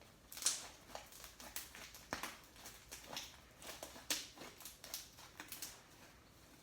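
Slime being squeezed and stretched by hand: a quick, irregular run of small sticky clicks and pops that stops shortly before the end.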